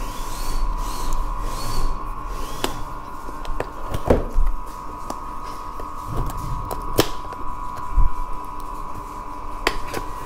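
A cardboard box being handled and opened on a desk: scattered sharp taps and knocks with a few dull thuds and cardboard scraping, over a steady high-pitched whine.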